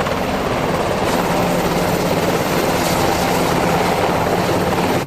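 Helicopter sound effect: rotor blades chopping steadily over engine noise, cutting off suddenly at the end.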